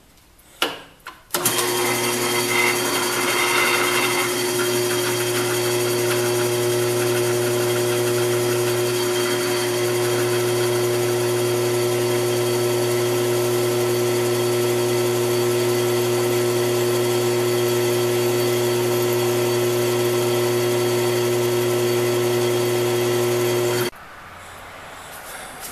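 Electric drill motor starting after a click and running at a steady pitch while drilling a set screw hole in a steel handle, then switched off abruptly near the end.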